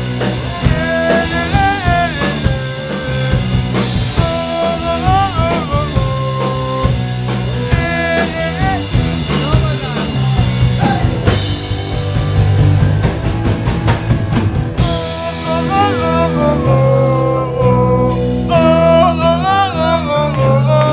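Live rock band playing loudly: an electric guitar line with bent notes over a steady bass line and a drum kit, with a stretch of cymbal wash about halfway through.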